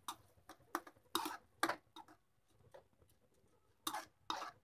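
Metal spoon stirring raw rice into tomato puree in a kadai: about six short scrapes against the pan, with a pause of nearly two seconds in the middle.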